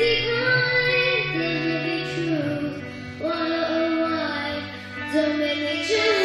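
Music: a woman singing slow, held notes over a sustained low accompaniment.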